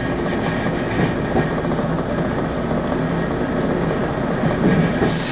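Diesel locomotive hauling passenger coaches past, its engine running with a steady rumble. A hiss starts just before the end.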